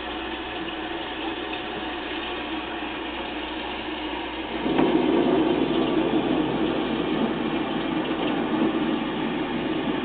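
Thunder rolling in about halfway through: a low rumble that swells suddenly and then slowly dies away, over a steady rattling background noise.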